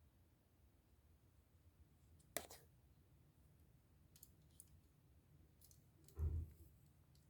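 Near silence with scattered faint clicks, a sharper click about two and a half seconds in and a soft thump about six seconds in: small plastic model-kit parts and hobby tools being handled.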